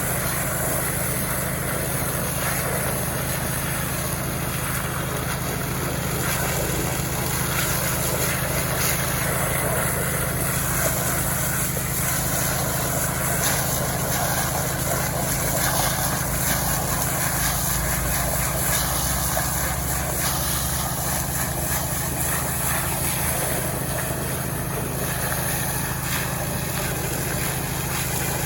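Small Robin engine running steadily at a constant speed, a continuous even drone with no change in pitch or load.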